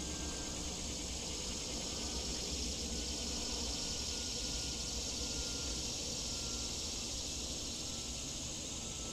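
A steady, high-pitched chorus of insects, continuous and unchanging, over a low rumble.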